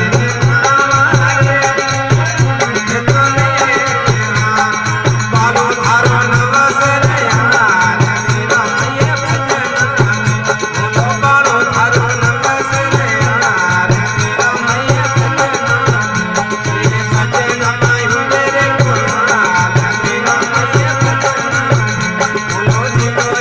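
Folk music with a steady, driving drum beat under a wavering, high melodic line.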